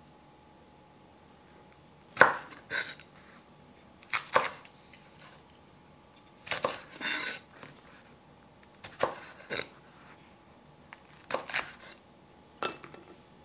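Kitchen knife cutting the stems off shishito peppers on a wooden cutting board: sharp knocks of the blade on the board, mostly in pairs, about every two seconds, with one longer rasping cut about halfway through.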